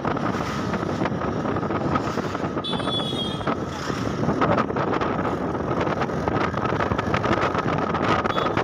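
Wind buffeting the microphone of a moving motorbike, over the bike's running engine and the passing traffic. A brief high-pitched tone sounds about three seconds in.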